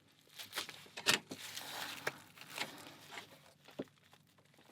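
Rustling and tearing of tape and wrapping on a wrapped package being handled: a string of short, separate rustles and crackles, the loudest about a second in.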